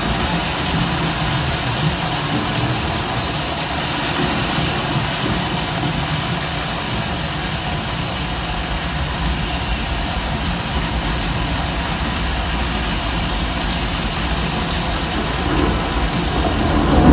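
A large choir imitating a thunderstorm with body percussion: a steady, dense, rain-like rush over a low rumble, swelling slightly near the end.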